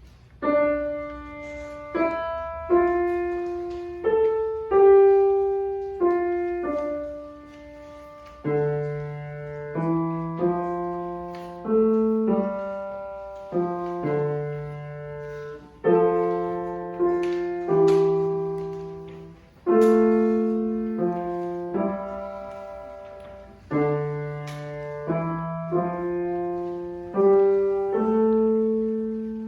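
Solo piano playing a slow, simple piece: single melody notes struck and left to ring and fade, with a lower bass line joining in partway through.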